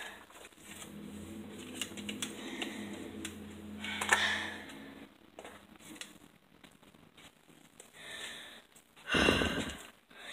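Phone handling noise: scattered clicks and rubbing as the phone shifts against clothing. A short, louder rustling burst comes near the end.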